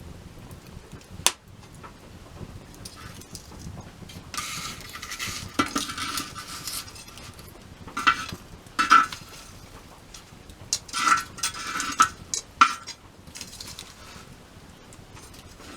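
Metal cookware being handled: a sharp click about a second in, a stretch of scraping, then several short bursts of ringing clinks and scrapes.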